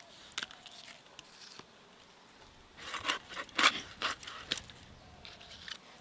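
Fish being cut into pieces against an upright curved blade: a quick run of scraping, crunching strokes about three seconds in, as the blade goes through scales and bone, followed by a few faint ticks.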